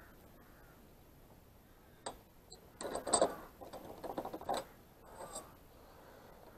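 Metal lever door handle and its fittings clicking and rattling as the loosened handle is worked off the door. There is one click about two seconds in, then a burst of clicks and rattles lasting about two seconds.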